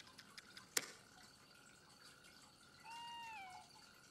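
Quiet background ambience with faint steady high tones and small ticks. A single sharp click comes a little under a second in. About three seconds in there is one short pitched call with overtones, held level and then dipping at the end.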